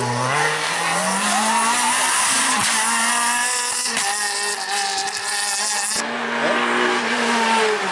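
Renault Clio R3 rally car engine under hard acceleration: the revs climb over the first two seconds, then hold high with small rises and dips. The sound changes abruptly about six seconds in.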